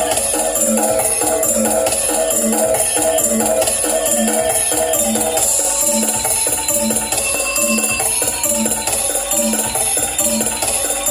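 DJ remix dance music with a steady beat a little under two per second and continuous jingling, tambourine-like percussion.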